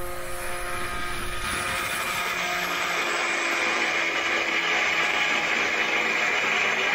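Electric angle grinder mounted in a homemade jig, running steadily as its disc grinds the rough top surface of a cast-iron part flat. The motor's steady tone runs under a continuous hiss of abrasive grinding.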